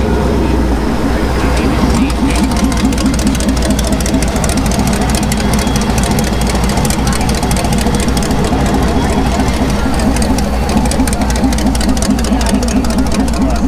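Off-road race buggy's engine idling at low revs as it creeps past, a loud, rapid, even pulsing throughout.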